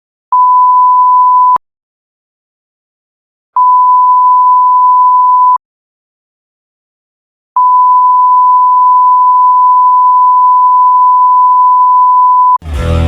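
Censor bleep: a pure, steady high-pitched beep tone played three times with silence between. The first lasts about a second, the second about two seconds and the third about five seconds. Just before the end, loud music cuts in.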